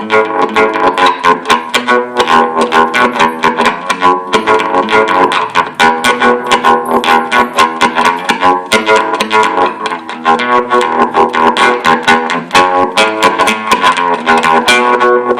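Esteban acoustic-electric guitar played through overdrive with its pickup battery running low, giving a gritty, distorted rock tone. It is played as quick picked notes and strums, several a second, without a break.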